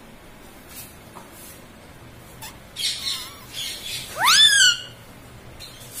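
Rose-ringed parakeet (Indian ringneck) giving one loud screech about four seconds in, sweeping sharply up in pitch and falling back, after a few soft scratchy sounds.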